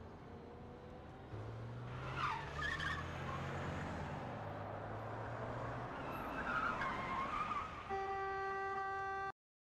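Car engine running with tyres squealing twice as it pulls away through traffic, then a long steady horn blast about eight seconds in that cuts off suddenly.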